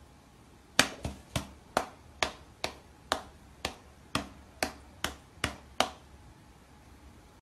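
A cat's paw tapping repeatedly against a glass pane, about a dozen light, sharp taps at an uneven pace of roughly two a second, stopping about six seconds in.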